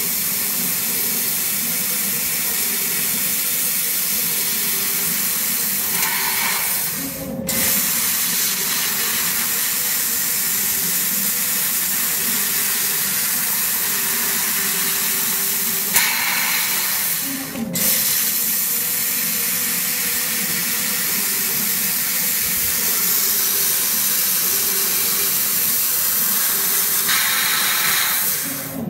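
Laser tube-cutting machine's assist gas hissing steadily from the cutting head's nozzle as it cuts a rotating metal tube. The hiss cuts off briefly twice, about seven and seventeen seconds in, and a faint motor whine runs underneath.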